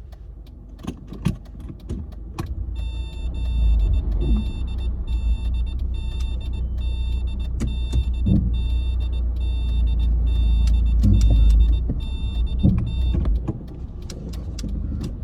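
A car's warning chime repeats about twice a second for roughly ten seconds, over the low rumble of the car running. There are scattered knocks and rattles before the chime starts and again near the end.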